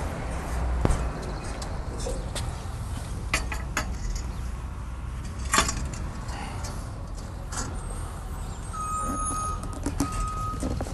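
Sections of metal dolly track being handled and set down on a concrete sidewalk: a handful of sharp metallic clicks and knocks, the loudest about halfway through, over a low steady outdoor rumble.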